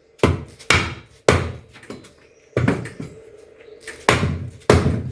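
About six sharp knocks at uneven intervals, from the powder-coated aluminium tube frame being handled and fitted together.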